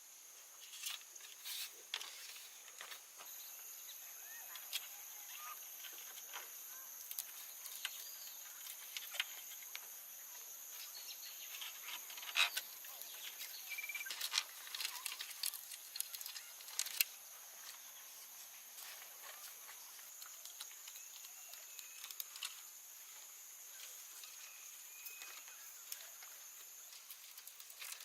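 Outdoor ambience with a steady high-pitched insect drone, and scattered sharp clicks and scrapes from handwork, louder around the middle.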